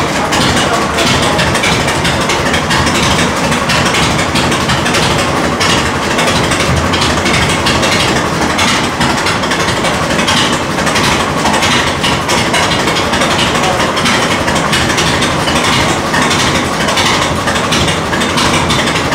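Large antique farm tractor engine running steadily at a loud, even idle.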